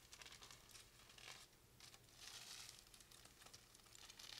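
Aluminium foil crinkling faintly as a strip is folded over in small, tight folds by hand, a little louder a little past halfway.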